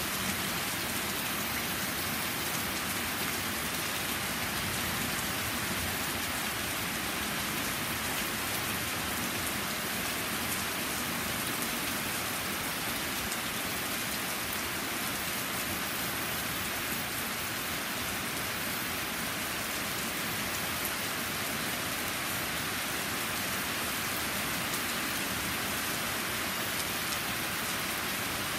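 Steady thunderstorm rain pouring down on a flagstone patio and the surrounding trees.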